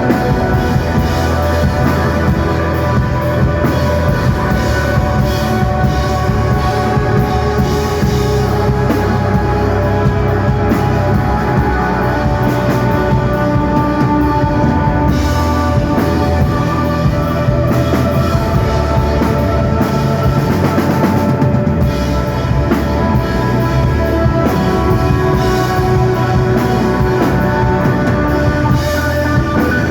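Rock band playing live: instrumental psychedelic desert rock, with drum kit and bass under sustained guitar lines and no singing.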